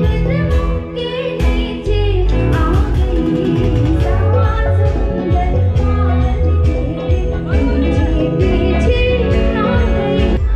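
Live band music played through PA speakers: a woman singing into a microphone over guitar and keyboard, with a steady beat.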